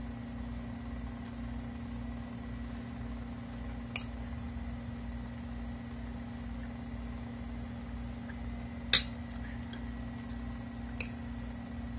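Metal fork clinking against a plate during a meal: a few short clinks, the loudest about nine seconds in, over a steady low hum.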